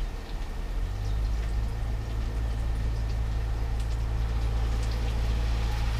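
Mushrooms sautéing in butter and olive oil, sizzling in a frying pan as teriyaki sauce is poured in. A steady low hum underneath comes up about a second in.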